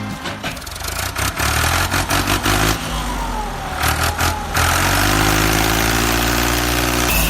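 An engine running, with its pitch rising slightly in the second half as it revs.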